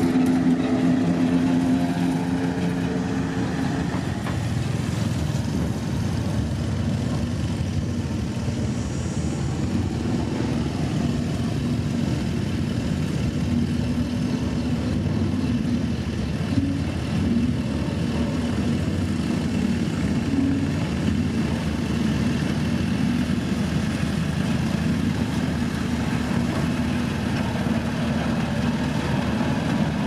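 Diesel engine of a single-drum road roller running steadily, a dense low rumble, with a humming tone over it that fades out about four seconds in.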